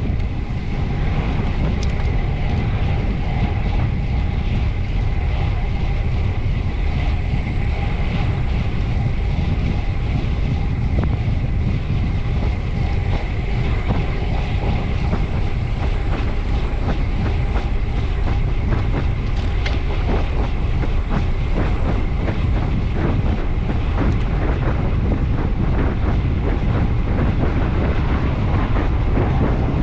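Wind buffeting a bicycle-mounted camera microphone at racing speed, a steady heavy rumble with the bike's road and drivetrain noise mixed in. Small clicks and rattles come through more often in the second half.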